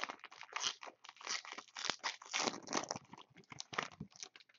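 Foil wrapper of a Panini Intrigue basketball card pack being opened and crumpled by hand, an irregular run of crinkling crackles that stops shortly before the end.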